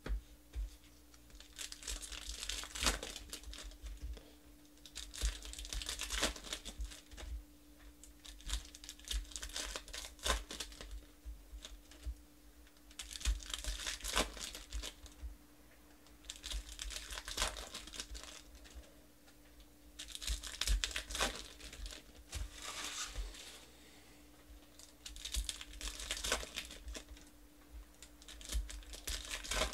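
Foil football card pack wrappers being crinkled and torn open in short bursts every few seconds, with sharp clicks of cards being handled and stacked in between.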